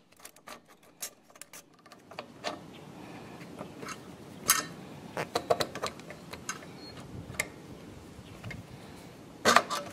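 Irregular small metallic clicks and taps from hands working the throttle control lever and fuel pump parts on an air-cooled diesel engine, with two sharper knocks, one near the middle and a cluster near the end.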